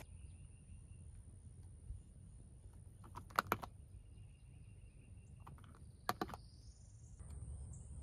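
Puck-style push light on a car headliner being pressed: a few sharp plastic clicks about three and a half seconds in as it comes on, and another short cluster of clicks about six seconds in. A faint low rumble and a faint steady high whine sit underneath.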